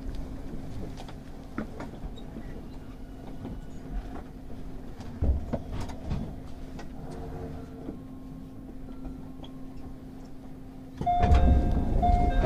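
A JR 211 series 5000 electric train standing still: a steady low electrical hum with scattered small clicks and knocks. About a second and a half before the end, a much louder sound cuts in, a heavy low rumble with several steady whistling tones over it.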